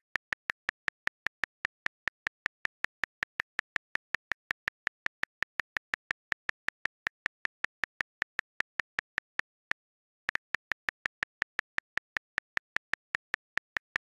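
Rapid, even key clicks from a phone calculator app's buttons, about five a second, each click one press that adds one to the count; they break off for about half a second around ten seconds in, then carry on.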